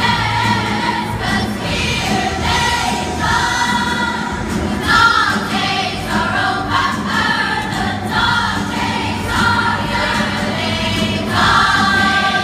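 A large choir of girls singing together over music.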